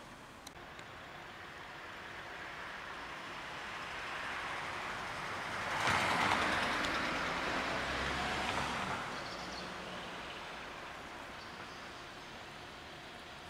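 A vehicle driving past on the street: the tyre and engine noise swells over several seconds, is loudest just past the middle, then fades away.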